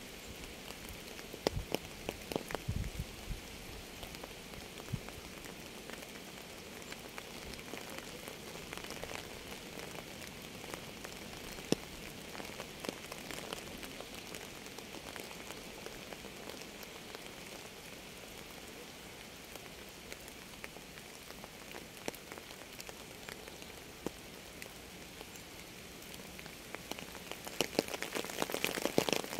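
Steady rain falling, with individual drops landing as sharp clicks over an even hiss. The drops grow denser and louder for a couple of seconds near the end.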